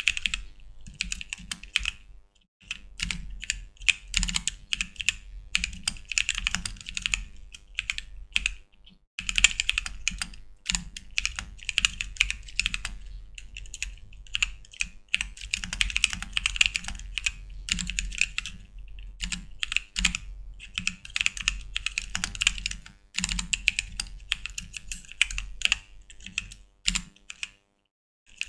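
Typing on a caseless custom ortholinear mechanical keyboard with unlubed bootleg Holy Panda tactile switches: a fast, steady run of key clacks with a few short pauses, and a metallic ring from the keys.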